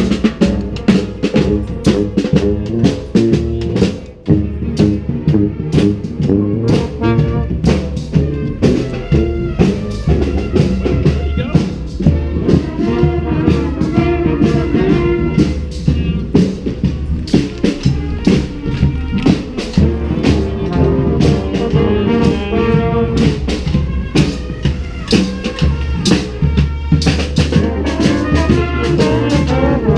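Street brass band playing an upbeat tune: brass instruments over a steady drum beat, with a brief break about four seconds in.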